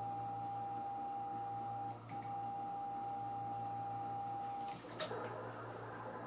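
A steady mid-pitched tone while the 23 cm amplifier station is keyed into transmit, with a short break about two seconds in; it stops near the end and is followed by a sharp click, typical of the sequencer's transmit relays dropping out. A steady low hum from the station equipment runs underneath.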